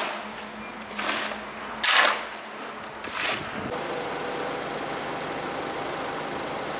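A long-handled tool scraping through wet gravel concrete in three strokes about a second apart, followed by a steady rushing noise.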